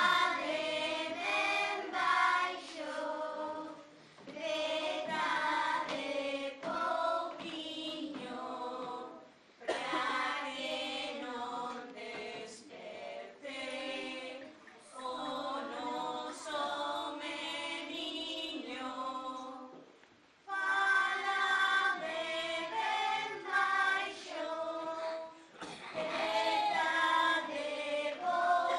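A children's choir singing phrase after phrase, with short breaths between phrases about four, nine and twenty seconds in.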